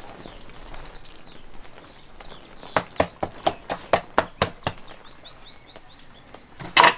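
A hand patting a rack of raw pork ribs about four times a second for two seconds, pressing a salt-and-pepper rub into the meat, then one louder slap near the end as the rack is flipped over onto the wooden board. Small birds chirp faintly in the background.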